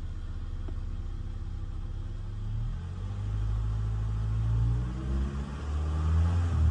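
2010 Ford Ranger pickup's engine, heard from inside the cab, idling and then revved: the pitch climbs from about two seconds in, eases back briefly, and rises again near the end.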